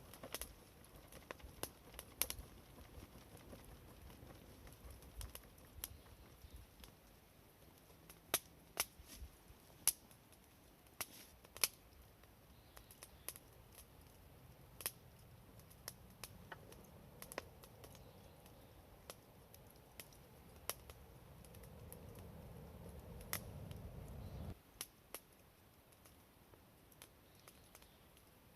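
Wood campfire crackling, with sharp snaps and pops at irregular intervals. A low rushing noise builds over several seconds and cuts off suddenly about three-quarters of the way through.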